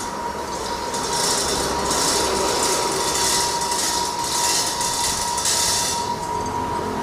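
Stone crusher running, rock clattering and grinding through it over a steady machine drone, with irregular surges of gritty rattle.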